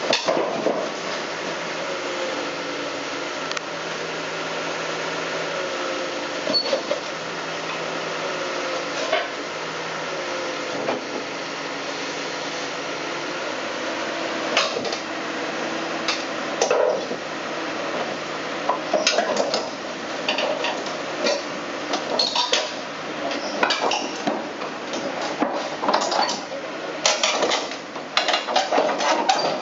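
Backhoe engine running, its pitch slowly rising and falling, with repeated metal clanks and knocks that come thicker in the second half.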